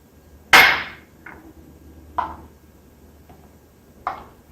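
Four sharp knocks of kitchen containers on a hard surface while spice rub is poured together, the first and loudest about half a second in, the rest lighter.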